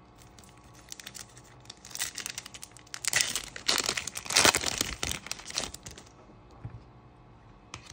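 Foil wrapper of a Panini Donruss Optic basketball card pack crinkling and tearing as it is ripped open by hand, for about four seconds starting about two seconds in.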